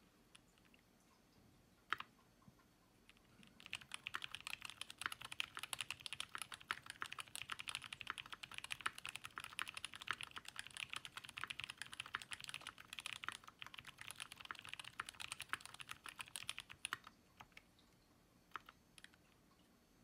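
Typing on a TX60 60% mechanical keyboard with Zealio 62g tactile switches lubed with Krytox 105: a few single keystrokes, then fast continuous typing from about four seconds in until about seventeen seconds in, then a few scattered keystrokes.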